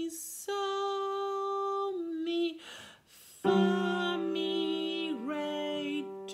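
A woman singing two long held notes with a breath between them, then keyboard notes sounding with her voice over them from about halfway.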